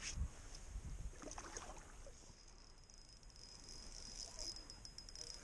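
Faint sounds of fishing from a kayak: a few low knocks against the kayak in the first second, then a run of fine quick ticks as the spinning reel is cranked to bring in a hooked fish.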